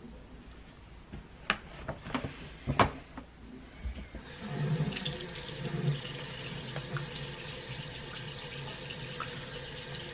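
A few sharp knocks, then a water tap turned on about four seconds in, running steadily into a sink.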